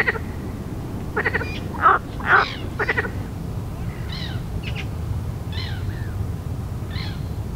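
Frogs croaking and birds calling around the lake: repeated short, pulsed croaks and higher chirps over a steady low rumble of background noise.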